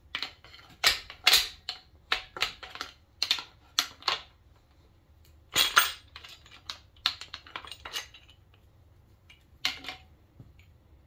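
Irregular metal clinks and knocks of a main bearing cap being worked off the engine block and its bearing shell being handled, with a few louder clanks about a second in and near six seconds.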